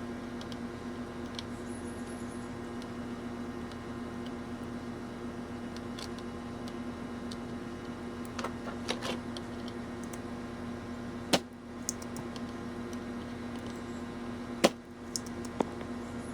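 A steady electrical hum at a repair bench, with light ticks and two sharp clicks of tools against a TV power board as components are desoldered from it.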